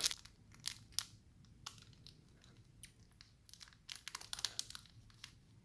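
Small plastic sachet crinkling in the hands as dry slime powder is tipped out of it, heard as faint, scattered crackles that come thicker about four seconds in.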